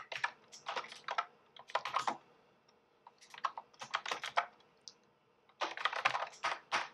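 Typing on a computer keyboard: quick runs of keystrokes separated by short pauses, with a longer pause of about a second past the middle.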